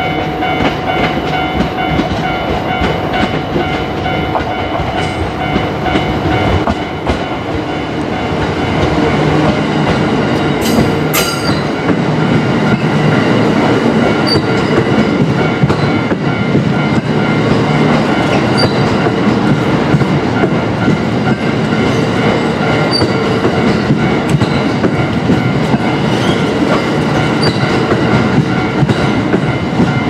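E26 Cassiopeia sleeper coaches rolling slowly past at a level crossing, pushed from the rear by their EF510 electric locomotive: wheels rumbling and clattering over the rail joints, growing louder about ten seconds in as the cars come alongside. The crossing's warning bell rings steadily the whole time, with a single sharp click about eleven seconds in.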